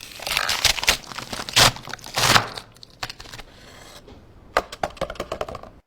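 A blade drawn across a sharpening stone in a series of gritty scraping strokes of uneven length and loudness, stopping abruptly near the end.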